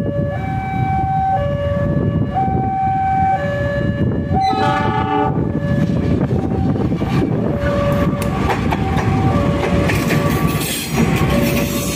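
Level crossing warning alarm alternating between two tones, about a second each, as a KAI CC 206 diesel-electric locomotive comes up to the crossing. Its horn sounds once for about a second, a little over four seconds in, then the engine and the clatter of the wheels grow louder as the train passes.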